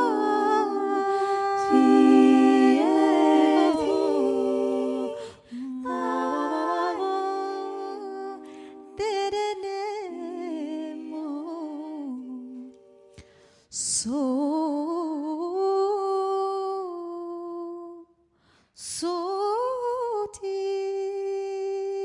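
Wordless a cappella humming and singing: long held notes that slide up and down in pitch, in phrases broken by short pauses.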